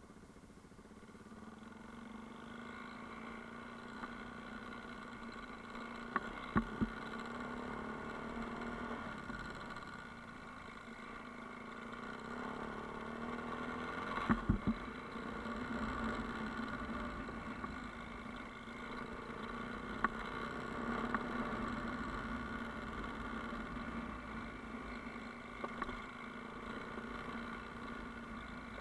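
Vehicle engine running steadily, growing louder over the first few seconds, with a few short sharp knocks scattered through.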